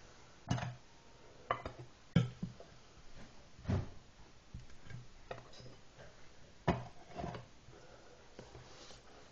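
Irregular knocks, taps and light clatter of kitchen things being handled and set down on a counter and board, about eight separate hits with short pauses between.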